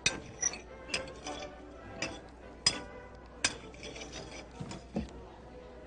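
Metal cutlery clinking and tapping against china plates and glass at the table: about nine sharp, irregular clinks, each with a brief ring.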